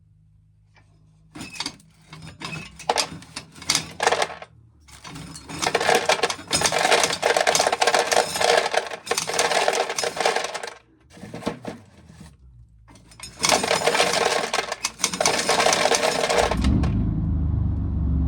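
Corn sheller running in several bursts, kernels rattling off the ears, with short pauses between ears. Near the end a low engine rumble comes in and keeps going.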